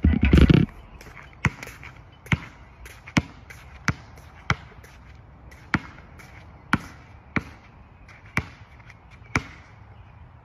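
A basketball dropping through a nylon net with a short loud rush, then bouncing on an asphalt court: about ten sharp single bounces spaced roughly a second apart.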